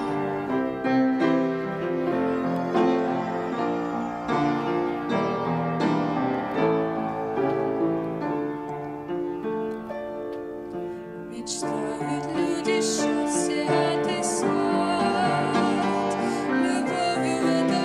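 A grand piano plays a slow introduction of chords and melody; about two-thirds of the way through, a young woman's voice comes in, singing a Russian Christian song over the piano.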